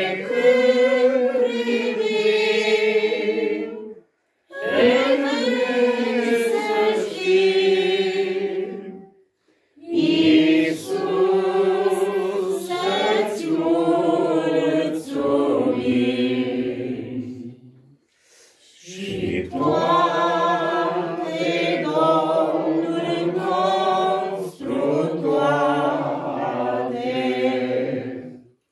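Small mixed group of men and women singing a Romanian hymn together, unaccompanied, in slow held phrases with brief breath pauses between them.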